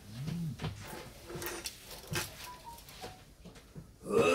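Small clicks and taps of a glue bottle and a fine metal pick being handled on a table while fishing hooks are tied. A brief hum-like sound rises and falls in pitch at the start, and a louder one comes near the end.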